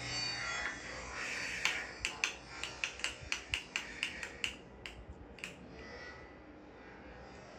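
Rattling: a quick run of sharp clicks, about four a second, starting about a second and a half in and dying away after about four seconds, over a rustling hiss.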